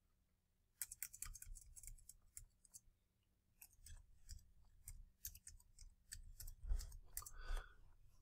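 Faint computer keyboard clicking as a search query is typed: quick runs of keystrokes, with a short pause about three seconds in.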